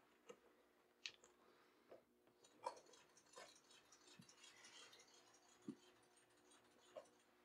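Near silence with a few faint light clicks and, for a couple of seconds in the middle, a soft scratching as a hand tool is drawn along the edge of a paper pattern on a leather hide.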